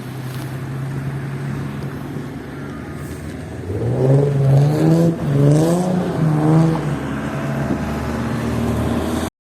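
Motor vehicle engine passing close by: a steady hum, then revving up and down about three times from a few seconds in before settling, cutting off suddenly at the end.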